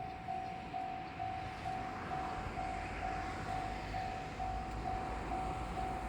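Japanese railway level-crossing warning bell ringing: a repeated electronic ding, about two strikes a second, over a low rumble.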